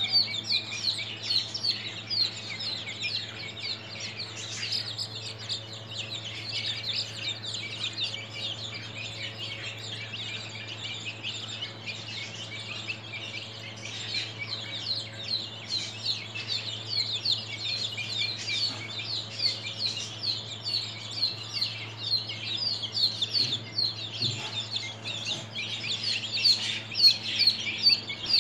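A flock of 13-day-old domestic chicks peeping nonstop, many short, falling cheeps overlapping, growing louder near the end. A steady low hum runs underneath.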